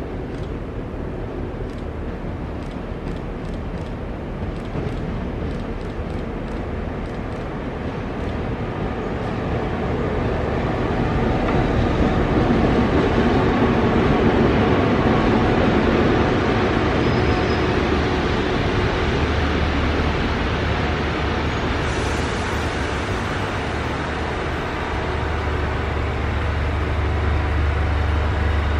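Victorian Railways X-class diesel-electric locomotive X31 running as it approaches and passes, hauling heritage wooden carriages whose wheels roll by over the yard tracks. The rumble swells to its loudest about halfway through, then a steady low hum grows towards the end.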